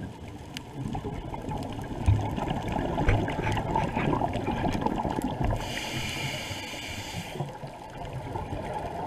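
Muffled underwater sound picked up by a camera below the surface: a dull water rumble with scattered crackling ticks and a couple of low thumps about two and three seconds in. A high whine lasts about two seconds in the middle.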